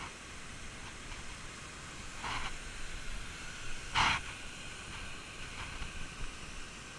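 Steady hiss of a small waterfall falling into a rock pool, with two short noisy bursts about two and four seconds in, the second the louder.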